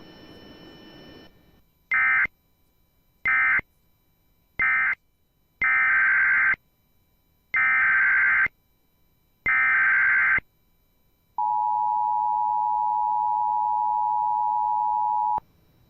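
Emergency Alert System signalling: three short digital data bursts (the end-of-message code closing the previous alert), then three longer data bursts (the SAME header of the next alert), then the steady two-tone attention signal, held about four seconds before it cuts off.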